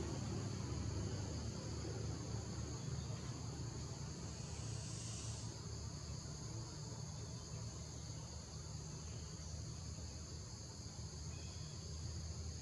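Steady high-pitched chorus of forest insects buzzing in several bands. It swells briefly about five seconds in, over a low steady rumble.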